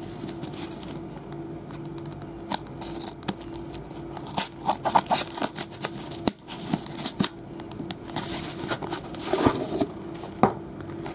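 Scissors cutting along the taped seam of a corrugated cardboard box, with the cardboard scraping and being handled. The snips and scrapes come irregularly and are busiest from about four to ten seconds in.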